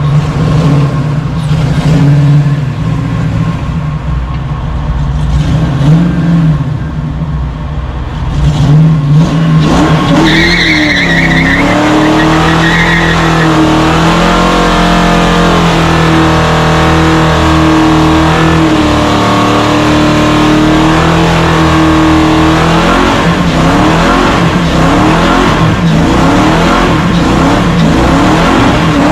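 Ford 302 V8 in an SN95 Mustang drift car running at low, uneven revs, then revving hard about ten seconds in with a brief tire squeal. It is held at steady high revs for about twelve seconds, as in a burnout, before dropping back to idle.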